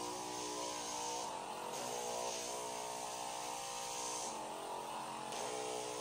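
Handheld percussion massage gun buzzing steadily while pressed against a person's back, its tone shifting slightly a few times as it is moved.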